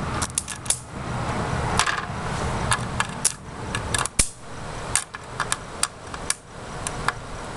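Electrical arcing as a live wire from a 13.8 V, 23 A power supply is scraped against a computer motherboard's parts: an irregular string of sharp snaps and pops over a sizzling hiss as components burn.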